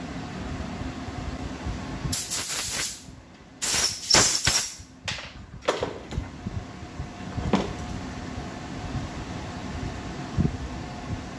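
Compressed-air blow gun giving several hissing blasts, two longer ones of about a second each followed by a few short puffs, blowing shavings out of freshly tapped holes in a magnesium engine case. A few light tool clicks follow.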